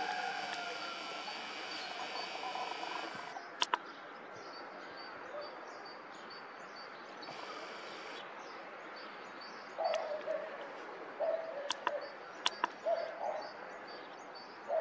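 Outdoor background with small birds chirping, then a run of short, lower calls from about ten seconds in. A few sharp clicks sound over it.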